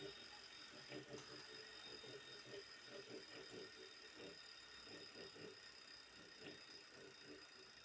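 Wahoo KICKR smart bike trainer running with a bicycle on it, making a faint, repeated clicking about once or twice a second: the strange noise the trainer is being checked for.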